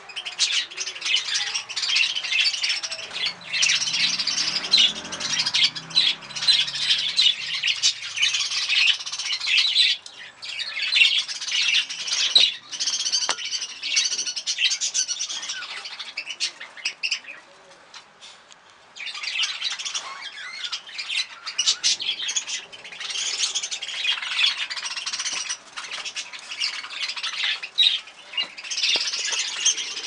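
Budgerigars chattering and squawking in a dense, continuous stream of high chirps, dropping away for a couple of seconds a little past the middle.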